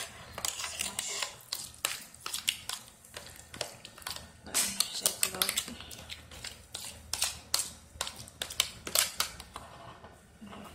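Metal fork and spoon clicking, tapping and scraping against a plastic container while mashed squash is mixed with egg, in an irregular run of sharp clicks.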